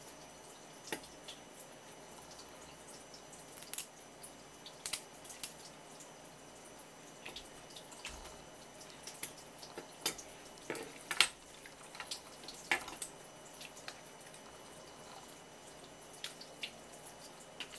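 Thin stream of tap water running and splashing onto a wooden cutting board while pieces of swimming crab shell are rinsed under it, with irregular sharp clicks and splashes scattered throughout.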